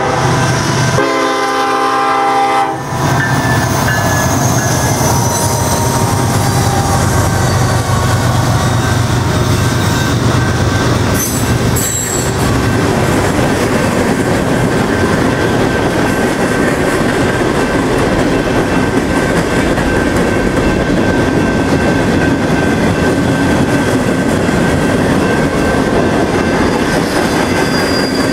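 Norfolk Southern manifest freight train passing: the locomotive's horn sounds until about three seconds in. Then the locomotives go by with a low engine drone, and a steady rolling rumble of freight cars follows, with a thin, steady wheel squeal.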